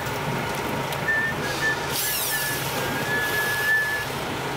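Cordless drill driving the screws of a zinc shaft anode collar on a boat's propeller shaft, whirring in short runs of a high whine, over a steady rushing background noise.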